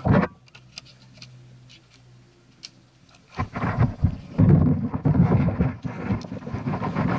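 Kayak paddling on calm water: a paddle stroke at the start, then about three quieter seconds with small drips and ticks. From about three and a half seconds in comes a run of loud, rumbling splashing and buffeting on the bow-mounted camera.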